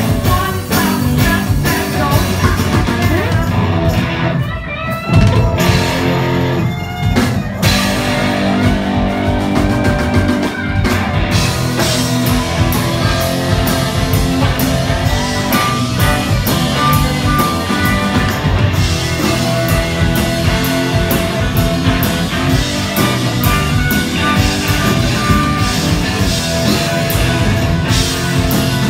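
Live rock band playing loudly, with electric guitar and drum kit, and a sung lead vocal in the first part. Through the second half the singer plays a harmonica solo, with held notes over the band.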